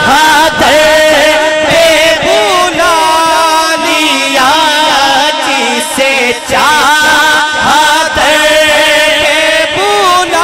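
Male voice singing a naat in long, ornamented melismatic phrases, the pitch curling up and down around held notes.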